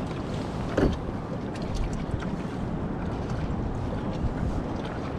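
Steady wind noise on the microphone around a kayak on calm sea, with a single soft knock about a second in.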